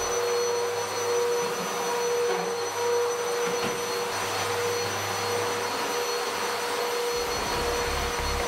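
Upright vacuum cleaner running steadily: an even rush of air with a constant motor whine.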